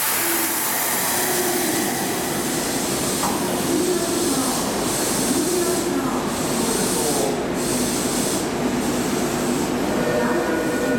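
Commuter train standing at an underground subway platform with its doors open, its equipment giving a steady running sound that echoes in the station.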